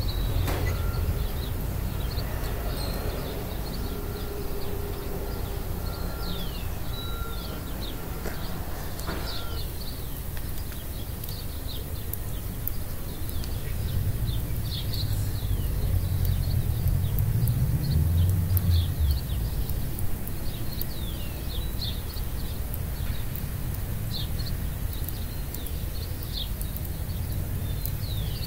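Small birds chirping repeatedly, short falling chirps scattered throughout, over a steady low rumble.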